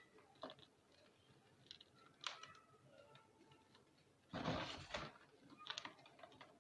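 Reformed gym chalk being crushed: a few scattered small crunches and crackles, then a louder, denser crunch about four and a half seconds in and a shorter one just after.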